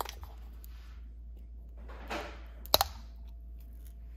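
A new plastic bottle of wood polish being opened by hand: a click as the cap is twisted, a short rustle about two seconds in as the foil seal is worked loose, then a sharp snap shortly after.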